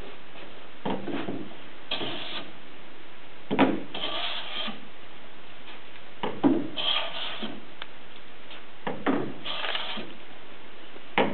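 Long metal hand plane taking strokes along an alder board, about one every two and a half seconds. Each stroke is a knock followed by the hiss of a shaving being cut.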